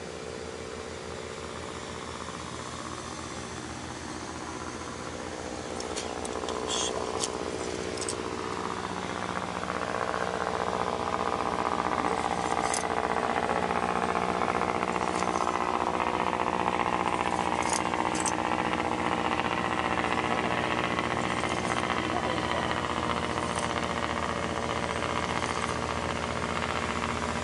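A boat engine running steadily nearby, growing louder from about six seconds in, with a few sharp clicks.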